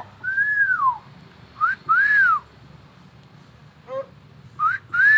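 Hill myna whistling: three clear whistles that each rise and then fall, the second and third each led in by a short rising note.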